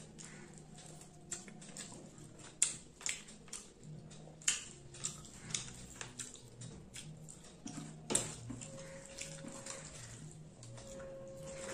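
Close-up eating sounds: scattered wet clicks and smacks of chewing, and fingers squishing rice and fried fish on a plastic plate, over a low steady hum.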